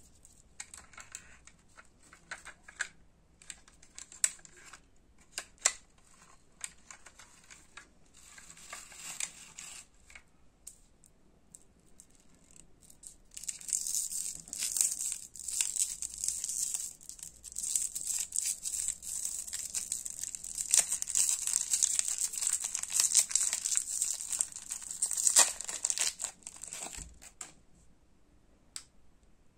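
Plastic lollipop wrapper being crinkled, twisted and peeled off a round lollipop. A few scattered crackles at first, then dense, steady crinkling from about halfway through that stops shortly before the end.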